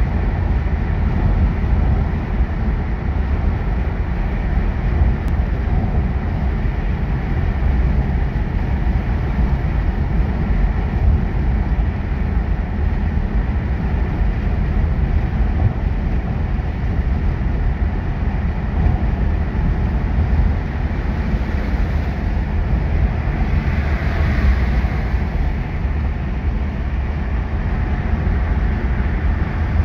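Steady in-cabin road noise of a Mercedes-Benz W124 cruising on a motorway: a deep rumble of engine and tyres with a wash of wind and road hiss. The hiss swells briefly about three-quarters of the way through.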